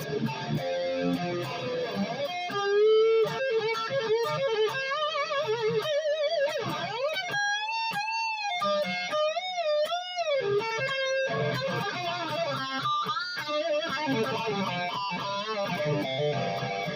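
Dean Switchblade ML electric guitar playing riffs and lead lines. In the middle come a few long notes bent with a wide, wavering vibrato.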